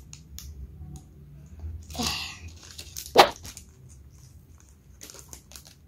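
Handling of a plastic blind-box wrapper and a small vinyl toy figure: a short rustle of the plastic bag about two seconds in, a sharp plastic click a second later, then a few light taps near the end.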